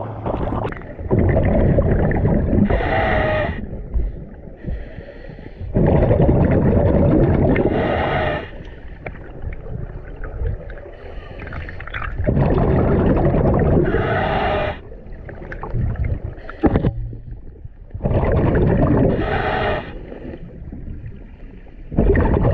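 Scuba diver breathing underwater through a regulator: five surges of exhaled bubbles rumbling past the microphone, about every five to six seconds, each ending in a short whistling tone.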